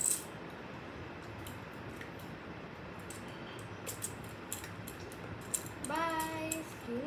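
A plastic candy wrapper and small plastic whistle-candy toy being handled, giving scattered sharp clicks and crinkles, with one loud click at the start, over a steady background hiss. About six seconds in, a child's voice sings a short held note, then starts another rising one near the end.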